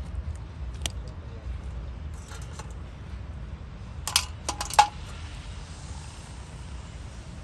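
Sharp metallic clinks: a single one about a second in, a few light ones a little later, and a loud cluster of three or four ringing clinks about four seconds in, over a steady low rumble.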